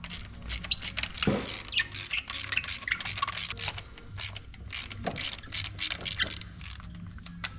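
Hand ratchet wrench clicking in quick irregular runs of strokes while bolts on top of the engine are turned.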